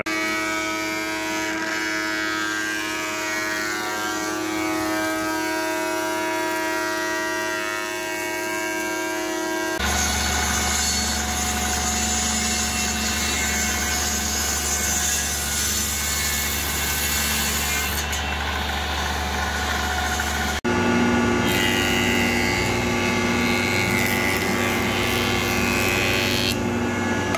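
Woodworking power tools cutting a pine 2x12 board in three takes: a table saw ripping it, and from about twenty seconds in a Delta DJ-20 jointer running as the board's edge is fed across the cutterhead. The noise is steady within each take and changes abruptly at each cut, about ten and twenty seconds in.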